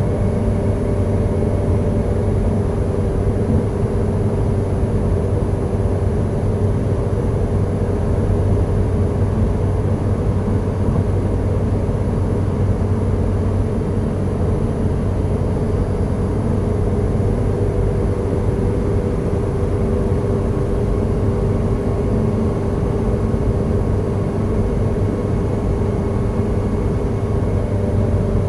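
Car driving steadily through a road tunnel, heard from inside the cabin: an even drone of engine and tyre noise with a few constant hums, unchanging throughout.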